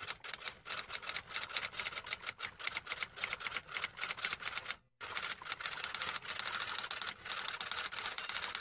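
Typewriter sound effect: a fast run of key clicks, breaking off briefly about five seconds in.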